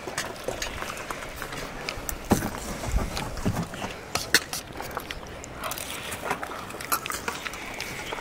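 Kitchen work: scattered light clicks and knocks over a steady low hiss.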